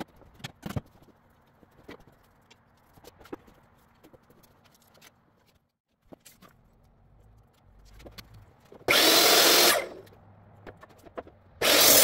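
Powered miter saw cutting through wooden boards twice, each cut short and loud, the first about nine seconds in and the second near the end, among scattered knocks and clatter of boards being handled.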